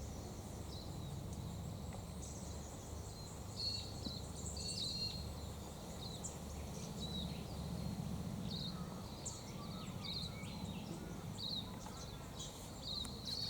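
Small birds chirping: many short, high chirps scattered throughout, over a steady low rumble.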